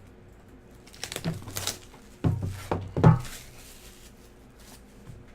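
Cardboard trading-card box being cut along its side and pried open by hand. Rustling and scraping about a second in, then several sharp knocks and thuds, the loudest about three seconds in.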